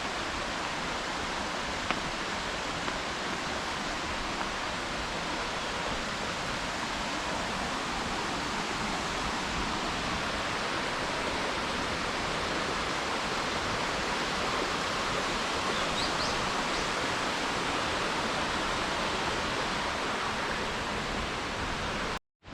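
Steady, unbroken rush of a waterfall, cutting off suddenly near the end.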